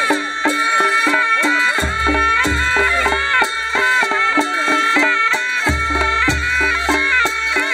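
Nepali panche baja folk ensemble playing: a reedy shehnai melody holds and wavers above a quick, steady beat of drums and cymbals, with deep drum booms underneath.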